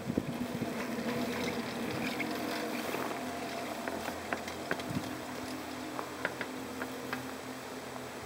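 Chairlift ride: a steady hum with faint tones in the first few seconds, and scattered light clicks and creaks.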